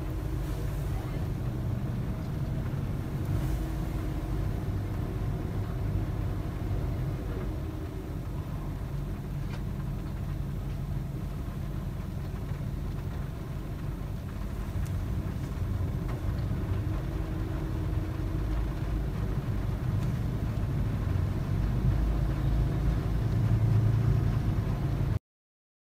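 Steady low rumble of engine and road noise heard inside a car, cutting off abruptly near the end.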